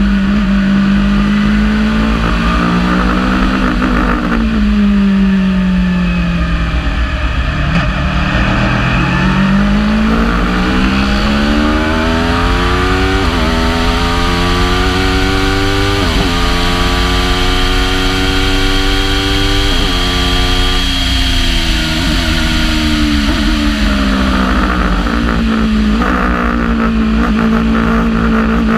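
Aprilia RSV4 V4 motorcycle engine driving a Wolf GB08 Thunder race prototype, heard onboard at speed. The revs fall away as the car slows, then climb through two quick upshifts, ease off again and hold steady near the end.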